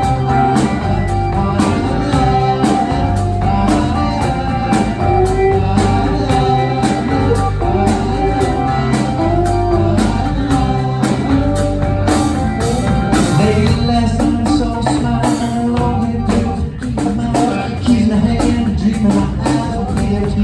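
A live rock band playing an instrumental passage between sung lines, with guitar over a drum kit keeping a steady beat.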